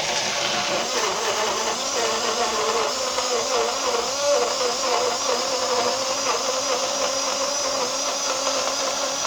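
Mini electric blender switched on and running steadily, chopping acerola cherries in water; the motor's pitch wavers up and down as it blends.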